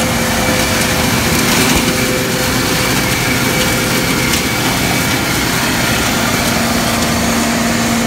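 Gleaner combine running while harvesting soybeans, heard close to its rear straw chopper as it throws out chopped stalks and chaff: a steady machine drone with a constant hum under an even rushing noise.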